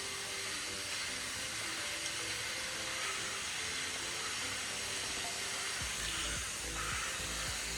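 Background music, a melody of short notes, over a steady rushing hiss. A bass line comes in about six seconds in.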